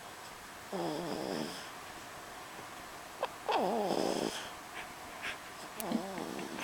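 Heavy snoring from a sleeping pet: three drawn-out snores, each with a wavering pitch, about a second in, midway, and near the end.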